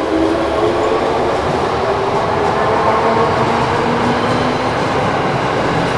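Train running on rails: a steady rumble with faint hums that slide slowly in pitch.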